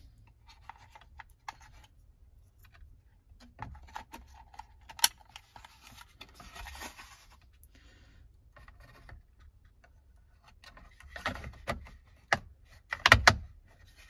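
Hands handling a plastic interior trim panel and a wire-harness connector: scattered light clicks and rustling, a sharp click about five seconds in, and a cluster of louder clicks with a thump near the end as the panel is set in place.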